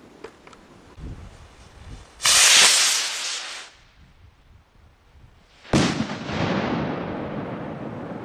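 A firework rocket takes off with a loud rushing hiss lasting about a second and a half. About three seconds later it bursts overhead with a sharp bang that rolls on as a long, fading rumble. A few faint pops and a dull thump from other fireworks come first.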